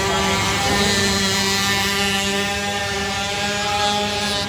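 Youth racing ATV's engine running hard at a steady pitch as the quad rounds a dirt flat-track.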